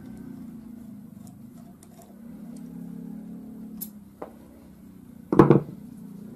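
Air rifle parts and tools being handled during disassembly: a couple of light metal clicks, then a single loud knock about five seconds in as a part is set down or bumped on the table, over a steady low hum.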